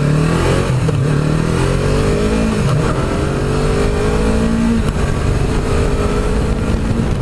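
2016 Yamaha YZF-R3's parallel-twin engine accelerating through the gears, its pitch climbing and dropping back at two upshifts, then holding steady. Heavy wind noise on the unshielded microphone.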